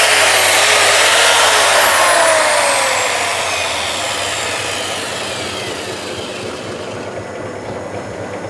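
A mains-powered electric power tool's motor running with a slightly wavering whine, then switched off about two seconds in and spinning down, its pitch and loudness falling steadily. A low steady hum lies underneath.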